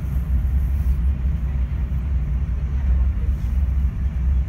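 Steady low rumble of a passenger train running at speed, heard from inside the carriage: wheels and running gear on the track.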